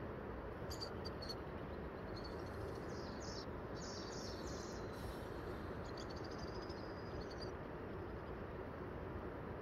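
A small bird chirping in three short runs of high calls over a steady background noise.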